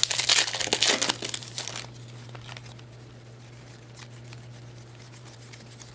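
Foil trading-card pack wrapper crinkling and rustling in the hands for about two seconds, then only a few faint ticks of cards being handled over a steady low hum.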